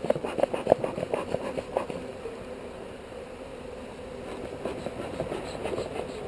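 Honeybees buzzing in a steady drone around an opened hive, with a quick series of wooden knocks and clatters in the first two seconds and a few softer ones near the end as the hive parts are handled.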